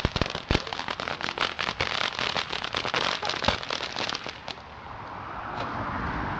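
Fireworks crackling: a dense run of rapid sharp pops that thins out and stops about four and a half seconds in, leaving a faint hiss.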